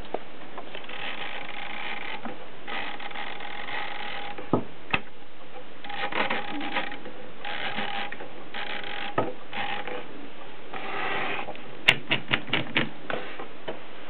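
Mercedes Prima manual typewriter mechanism worked by hand, its ribbon spool being turned: several one-second stretches of rasping mechanical whirr, a few single clicks, and a quick run of about six sharp clicks near the end.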